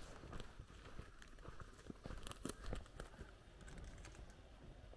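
Faint, irregular footsteps on a gravel road, heard as scattered short crunches and ticks.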